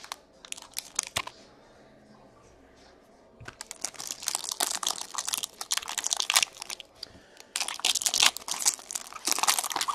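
Trading card packaging being torn open and crinkled: a few sharp crackles at first, then two long bouts of dense crinkling about three and a half seconds and seven and a half seconds in.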